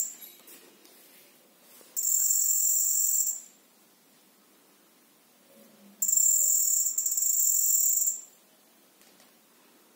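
Piezo buzzer of an Arduino metal detector sounding twice: a high-pitched buzz of about a second and a half, then a second one of about two seconds. This is the detector's alarm that metal is near its coil.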